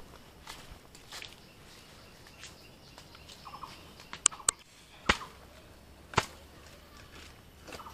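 A bird calling in short trilled bursts a few times in the second half, among several sharp clicks or snaps, the loudest two about five and six seconds in.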